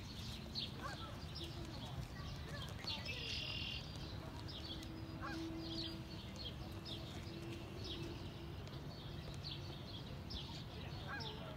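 Marsh birds calling, a steady run of short high chirps repeated over and over, with an occasional lower honk from geese on the water, over a steady low rumble.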